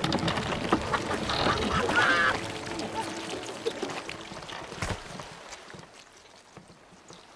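Film-scene commotion aboard a fishing boat: a loud wavering cry about a second and a half in over a clatter of noise, then a single sharp knock near the five-second mark, with everything fading down to a low hush by the end.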